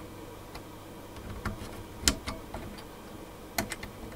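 Plastic wire-harness connectors being pushed onto the pin headers of a circuit board, giving a series of irregular small clicks and taps. The sharpest click comes about two seconds in, with another near the end.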